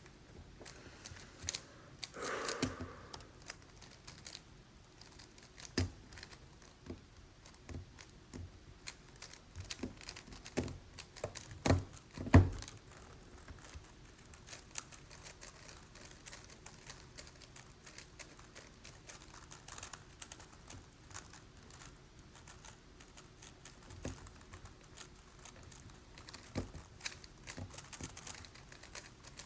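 Megaminx puzzle being turned rapidly during a speedsolve: a continuous stream of quick plastic clicks and clacks, with a few louder knocks, the loudest about 12 seconds in.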